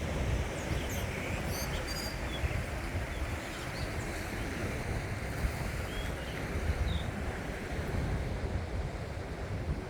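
Sea surf washing on the shore, with wind buffeting the microphone in a low rumble. A few faint, short high chirps come through now and then.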